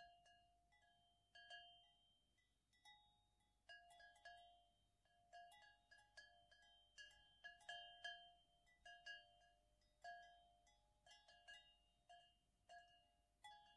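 Faint, sparse metallic chime tones struck at irregular moments, a few notes a second, each ringing briefly and dying away.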